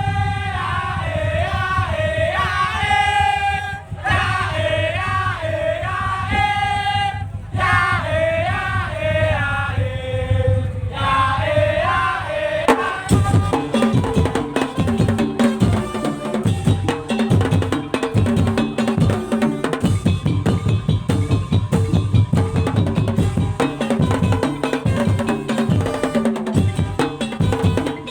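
Madurese tong-tong percussion ensemble playing: a wavering high lead melody rides over steady drumming for about the first dozen seconds. Then the melody drops out and the drums and pitched percussion carry the rhythm on alone.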